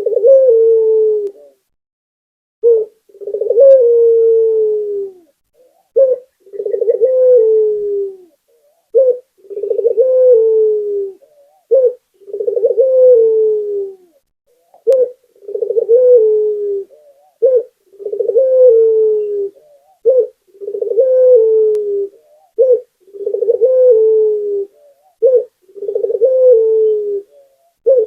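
Puter (Barbary dove) cooing over and over: each call is a short note followed by a longer coo that falls slightly in pitch, repeating about every two and a half seconds.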